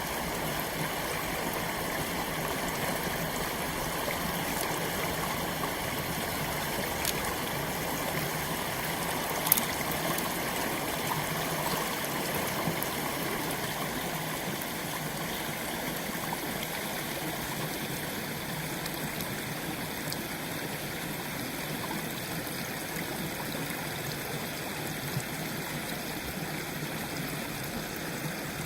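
Water rushing steadily through a hole punched in a beaver dam. A single sharp click about nine and a half seconds in.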